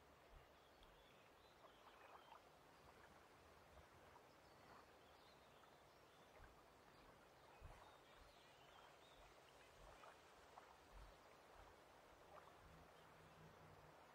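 Very faint lake ambience: a soft, steady water hiss with scattered faint chirps. A few soft low knocks stand out, the strongest about halfway through.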